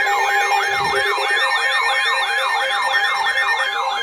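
Emergency alert siren tone for a severe thunderstorm warning: a rapid falling yelp repeating about four times a second over a steady tone.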